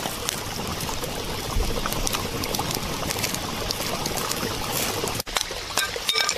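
Steady rush of a flowing mountain stream, with scattered light crackles. Near the end a few short sharp knocks.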